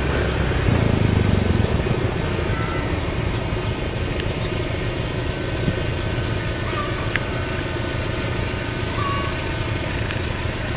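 Steady low mechanical rumble of a running vehicle, a little louder about a second in, with a few faint short high chirps over it.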